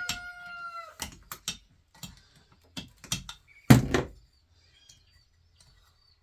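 Metal clicks and knocks from working on a rusted ceiling fan, with one heavy thunk a little over halfway in; a drawn-out squeal fades out about a second in.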